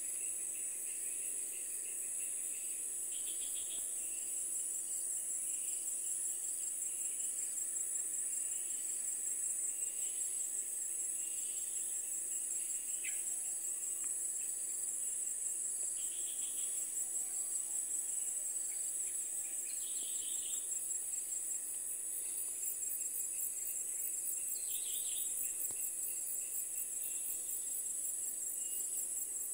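Steady, high-pitched chorus of insects shrilling without pause. From about two-thirds of the way in, a faster pulsing trill joins it, and a few short, fainter chirps break in now and then.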